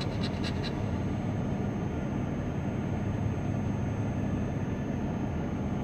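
A quick run of scratches from a scratcher rubbing a lottery scratch-off ticket in the first second, over the steady low hum of an idling car engine.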